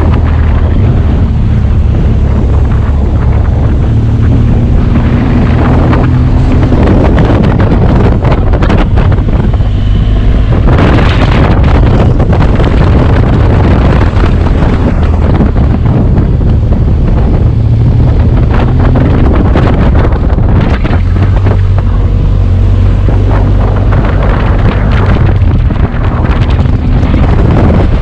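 BMW R1200GS boxer-twin engine through its stock exhaust, running steadily while the motorcycle is ridden, with heavy wind buffeting on the microphone.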